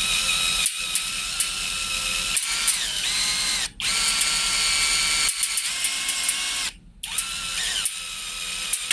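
Electric drill running at low speed, boring a 4.5 mm hole into a stainless steel handrail tube. The motor whine stops twice and climbs back up in pitch each time it restarts, with scattered sharp clicks as the bit cuts.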